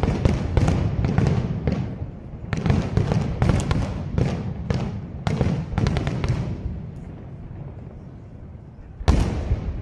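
Aerial fireworks shells bursting in a rapid series of bangs and crackles over a low rumble. The bangs thin out about seven seconds in, and a loud burst comes near the end.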